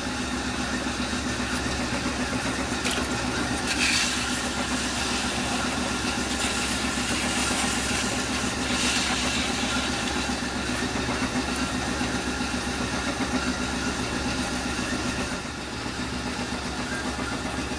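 Potter's wheel motor running with a steady hum while a clay plate spins on it and is shaped by hand, with a few brief scrapes about three to four seconds in and again around nine seconds.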